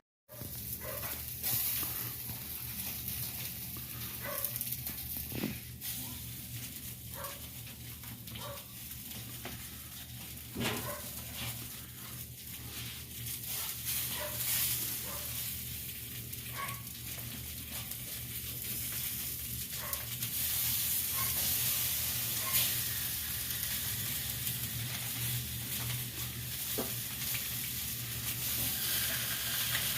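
Bratwurst sizzling as they cook, a steady frying hiss with scattered small pops and clicks over a steady low hum.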